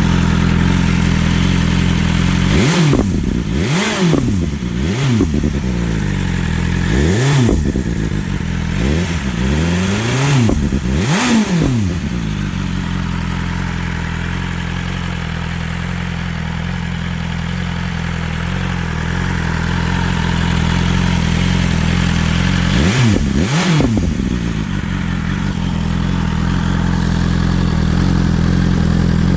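BMW S1000XR inline-four motorcycle engine with a Cobra SPX Black Series exhaust, idling and blipped on the throttle: about seven quick revs over the first twelve seconds, then steady idle, then two more quick revs about two-thirds of the way through. The exhaust burbles and crackles as the revs drop.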